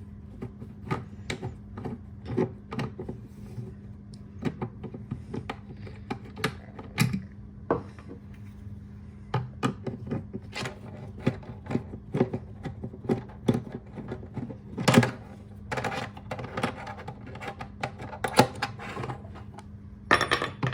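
Irregular clicks, taps and knocks of a small metal cooler latch being handled and taken apart, with a couple of longer scraping or rattling stretches about midway and near the end. A steady low hum runs underneath.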